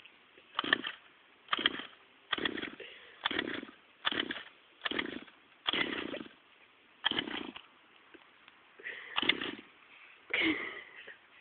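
A small engine's recoil pull-starter yanked about ten times in a row, each pull spinning the engine briefly without it catching: the engine will not start.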